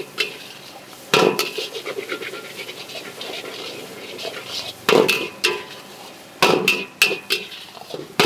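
Metal spatula scraping and clanging against a large wok as noodles are stir-fried, with a steady frying hiss beneath. The sharp, ringing clangs come once about a second in, then in a quick run between about five and seven seconds.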